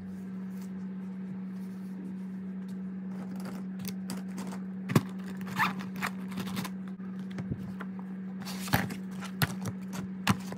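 Books, a spiral notebook and a pencil case handled and moved on a desk: a few scattered knocks and short scrapes, the loudest about five seconds in and again near nine seconds, over a steady low hum.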